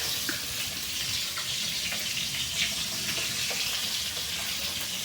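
Food frying in oil in a pan: a steady sizzling hiss with small scattered crackles.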